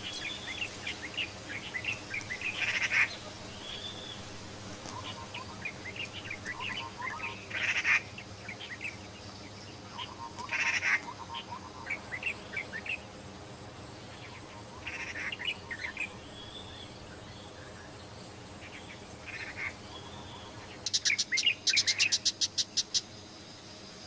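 Wild birds chirping and calling in short scattered phrases. Near the end comes a fast run of sharp repeated notes, about eight a second, lasting around two seconds.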